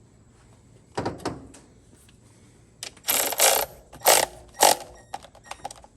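Work-bench handling of transmission parts and tools: a clatter about a second in, then a cluster of loud rattling, clicking bursts between about three and five seconds, and a few light ticks near the end.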